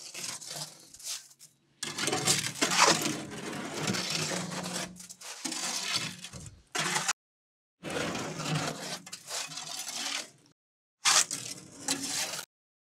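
Shovel scooping and scraping wet concrete, with the mix scraping and crunching as it is thrown into place, in several short stretches that cut off suddenly into silence.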